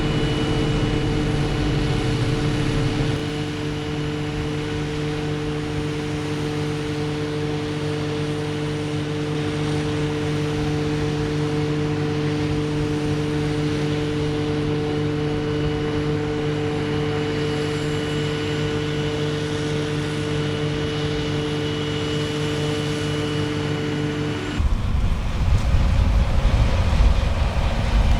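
Heavy farm machinery diesel engine running steadily with a strong, even drone. About 24 seconds in, the sound changes abruptly to a deeper, louder and rougher rumble.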